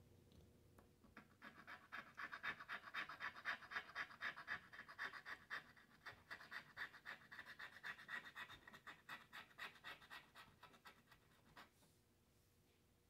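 Latex coating of a scratch-off lottery ticket being scratched off in quick back-and-forth scraping strokes, several a second. The strokes start about a second in and stop shortly before the end.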